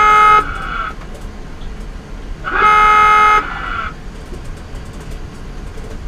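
Virginia-class submarine's dive alarm sounding over the ship's announcing system: the end of one blast, then a second blast of about a second about two and a half seconds in, each with a short echo. The two blasts signal that the boat is submerging.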